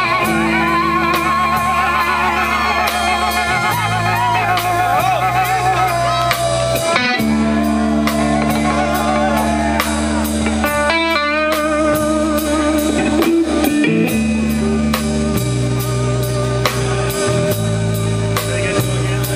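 Live rock band playing an instrumental passage: electric guitar lines with wavering, bent notes over held bass-guitar notes and a steady drum kit with regular cymbal strokes. A quick run of guitar notes comes about halfway through.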